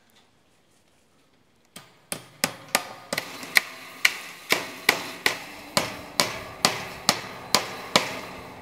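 Hammer driving fence staples into a post to fix wire fencing. About eighteen sharp blows, each with a short ring, start about two seconds in; they come quickly at first, then settle to a steady two or so a second.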